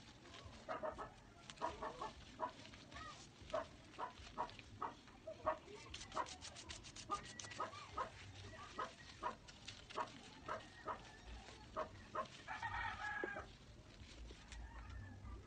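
Chickens clucking in short, irregular calls, with one longer call near the end.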